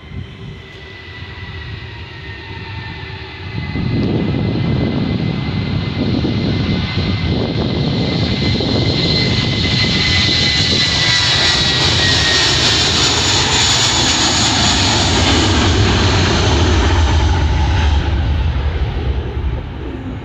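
Twin jet engines of a JetBlue Airbus airliner at takeoff power during its takeoff roll and liftoff. A steady high whine is soon joined by a loud roar that jumps up about three and a half seconds in, holds, and starts to fade near the end.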